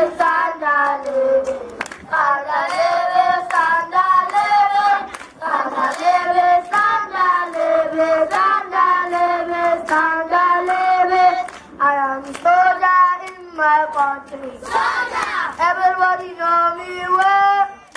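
A group of young children singing a song together into a microphone, in long held notes, with some hand claps.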